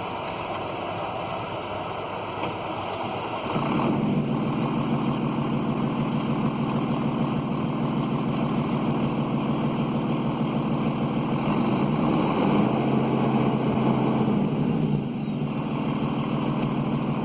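An engine starts running steadily a few seconds in. It rises in speed about twelve seconds in and drops back about three seconds later.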